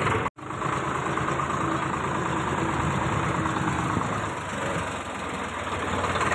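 Diesel farm tractor engine running steadily while the tractor drives along, heard from on board. The sound cuts out for an instant near the start, then carries on.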